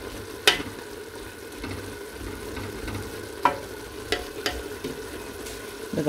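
Sliced onions frying gently in oil in a stainless steel pot, a steady soft sizzle as they soften. A wooden spoon stirs them and knocks sharply against the pot a few times.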